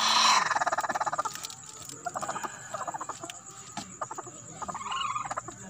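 Broody Frizzle bantam hen giving rapid, pulsed clucking calls as a hand pushes eggs back under her. A long loud call comes first, then several shorter bursts.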